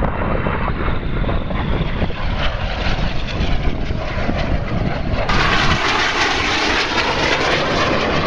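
BAE Hawk jet trainer's turbofan engine, heard as a steady jet roar from a low display pass. The sound turns louder and harsher in its upper range suddenly about five seconds in.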